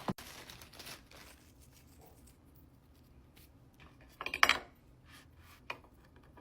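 Salt sprinkled onto a cooked steak with a soft hiss, then a short scrape of cutlery on a plate about four seconds in.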